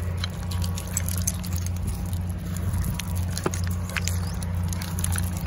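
Two small dogs' paws scrabbling over loose stones as a blue merle chihuahua and a miniature pinscher wrestle, giving many light clicks and clatters. A steady low rumble lies under them, with one sharper knock a little past the middle.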